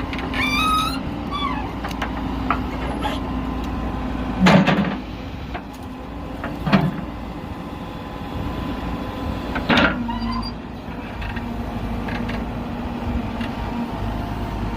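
Diesel engine of a JCB backhoe loader running steadily, with three sharp knocks spread through it, the first the loudest, and a few brief squeals near the start.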